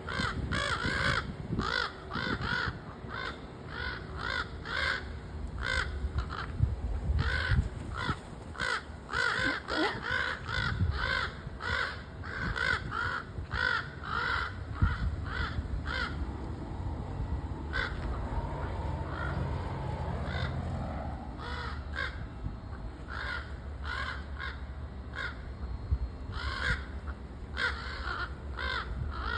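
Crows cawing over and over in quick runs of short, harsh calls, falling quiet for several seconds past the middle, then cawing again near the end. A low rumble runs underneath.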